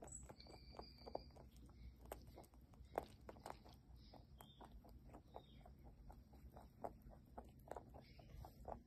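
Angora rabbit chewing a crunchy treat: faint, irregular crunching clicks, a few each second.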